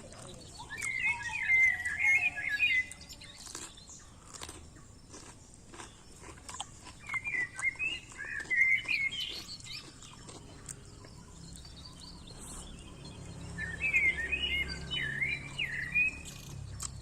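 A songbird singing three short bouts of rapid, twittering chirps, with scattered short clicks and smacks of eating in between.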